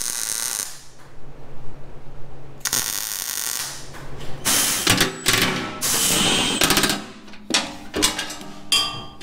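Welding arc crackling in short bursts while the air tank mounts are tacked to the wrecker's steel frame, then a cordless impact wrench rattling in short bursts over the last few seconds as the air tank's bolts are run down.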